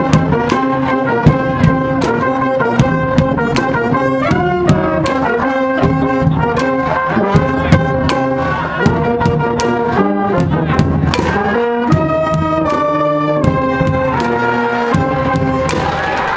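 Brass band cheering from the stands at a high school baseball game: trumpets and trombones play a melody over a steady drum beat.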